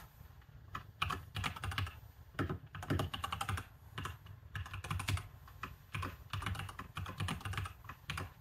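Typing on a computer keyboard: quick runs of keystroke clicks in short bursts, with brief pauses between them.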